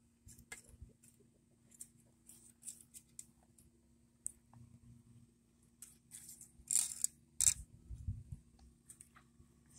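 Chicken wire clinking and rustling in light, scattered clicks as it is handled. About seven seconds in come two sharp snips, half a second apart, as the wire cutter of a pair of pliers bites the wire, followed by a dull thump.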